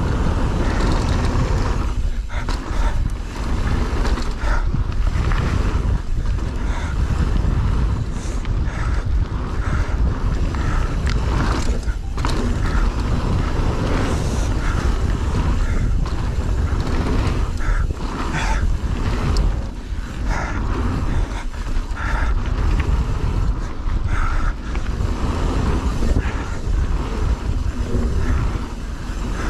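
Mountain bike riding fast down an enduro stage in a bike park: a steady loud rumble of wind and rolling tyres, broken by frequent knocks and rattles as the bike runs over roots and rocks.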